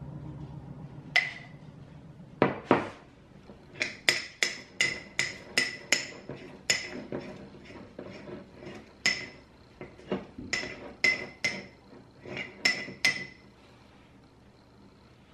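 Metal spoon clinking and scraping against the inside of a glass pint jar while sourdough starter is scooped out: a run of sharp clinks with a short ring, about two a second, stopping shortly before the end. Two louder knocks come about two and a half seconds in.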